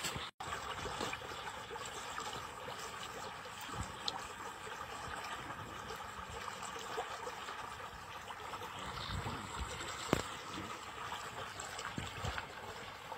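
Water rushing and churning steadily where a flow pours into a narrow canal, with a few faint clicks and one sharper click about ten seconds in.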